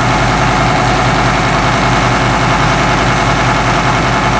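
Vertical milling machine running with its cutter taking a light skim cut across a bar of 3/4-inch key stock; a steady, unbroken machine drone.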